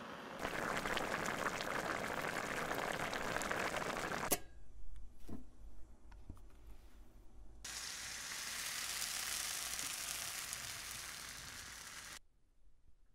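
Broth bubbling at the boil in a small steel pot of raviolini, a dense crackle that cuts off with a sharp click about four seconds in. A few soft spoon taps on pancetta follow. From about eight seconds in, pancetta with chopped garlic sizzles in a frying pan, fading away near the end.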